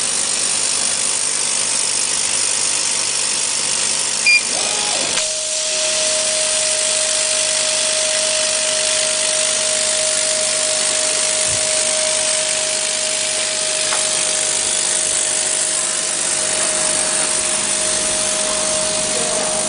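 CO2 laser cutting machine running while it cuts acrylic: a steady, loud hiss of machine noise, with a steady whine joining in about five seconds in. A short high beep sounds just before the whine starts.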